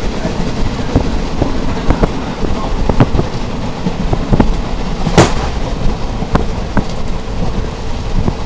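A moving passenger train heard from inside the carriage: a steady rumble and rattle with scattered sharp knocks, and one louder bang about five seconds in.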